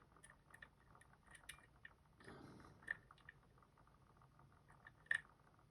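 Faint, scattered small clicks and a short scrape of a lock pick working inside a Robur safety deposit box lock, lifting the sidebar side pins under tension. Two slightly louder ticks come about three and five seconds in.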